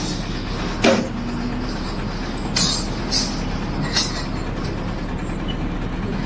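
A steady engine-like rumble and hum, with a few short sharp knocks or clanks about a second apart in the first half.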